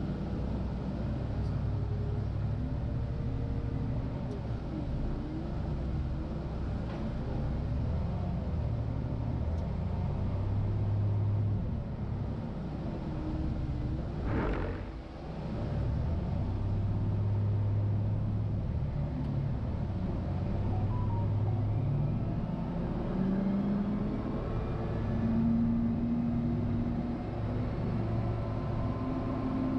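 CAT 950GC wheel loader's diesel engine running under load while pushing snow, its note rising and falling. It dips briefly about halfway through, then picks up again and climbs higher near the end.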